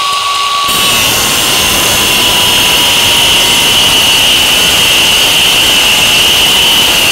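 DeWalt 20V cordless angle grinder with an abrasive wheel cutting into a steel security nut: a loud steady high whine, joined a moment in by the harsh rasp of the wheel biting into the metal. The motor's pitch sags slightly under the load.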